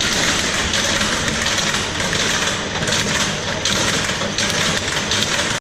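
Pecan cracking machine running, a loud continuous mechanical clatter as its die and pin crack the in-shell pecans.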